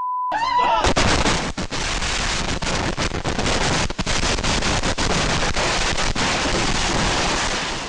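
Firecrackers going off in a rapid, continuous string of sharp cracks and pops, loud and dense for about seven seconds, then cutting off suddenly. A short steady beep comes at the very start.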